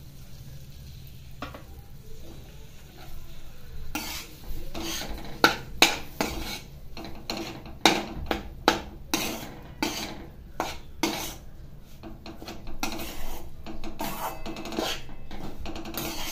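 A metal spatula scraping and knocking against a metal kadhai while it stirs and turns crumbly wheat flour roasting in ghee. The stirring starts about four seconds in, as a run of irregular sharp scrapes and clacks.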